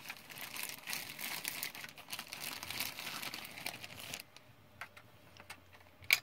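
Plastic toy-car packaging crinkling and crackling as it is pulled apart from both sides for about four seconds, then a few light clicks and two sharp snaps at the end.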